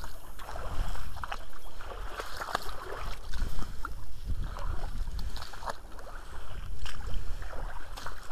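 A hand landing net dipped, swept and lifted in a shallow stream, with water sloshing and splashing. Irregular knocks and rustles of handling and steps on twigs and mud come through it.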